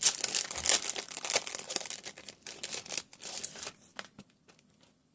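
Packaging crinkling and tearing as it is opened by hand, for about three and a half seconds, followed by a few faint handling ticks.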